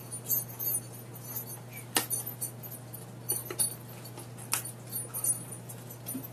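Wrapping on a poster package crinkling and rustling as it is opened by hand, with two sharp snaps about two and four and a half seconds in, over a faint steady hum.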